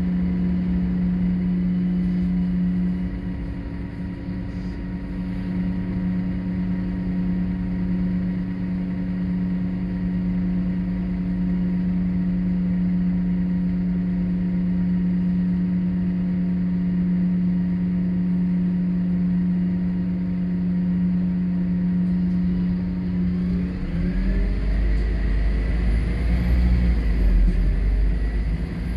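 City bus engine heard from inside the cabin, idling with a steady hum. About 24 seconds in it revs up as the bus pulls away, with a rising whine and a deeper rumble that grows louder.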